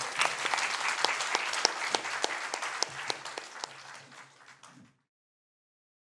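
Audience applauding, fading away and then cut off abruptly about five seconds in.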